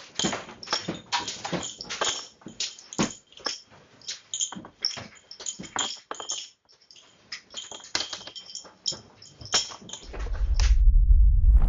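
Loose objects rattling and clinking in a rapid, irregular run of sharp clicks. About ten seconds in, a loud low rumble swells up.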